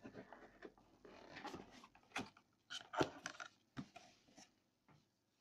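Handling noise of white Xiaomi over-ear headphones being lifted out of their cardboard box tray: rustling with a series of irregular plastic and cardboard knocks and clicks, the loudest about three seconds in.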